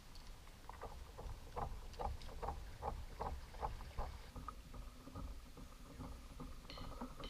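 Water slapping against a kayak hull in a quick run of short splashes, about two or three a second, over low wind rumble; music comes in near the end.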